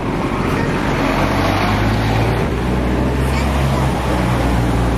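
Street traffic noise with the steady low hum of a motor vehicle engine running close by.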